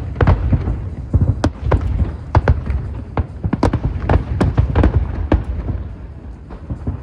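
Aerial fireworks going off in a rapid, irregular barrage of sharp bangs over a low rumble. The bangs thin out a little near the end.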